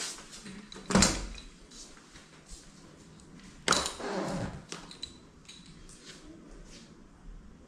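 Two sharp knocks about three seconds apart. The first is the loudest and has a low thud in it. The second is followed by about a second of rattling.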